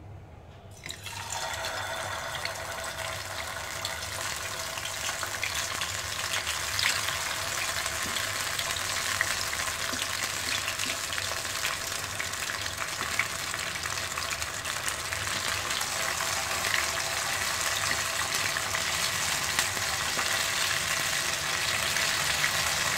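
Marinated chicken pieces deep-frying in hot oil in a pan: a steady sizzle with small crackles, starting about a second in.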